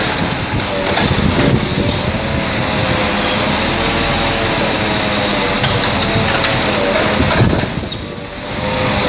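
Hydraulic grapple log loader running, its engine and hydraulic pump giving a whine that wavers in pitch as the grapple swings a log, with strong wind buffeting the microphone. The sound drops briefly a little before the end.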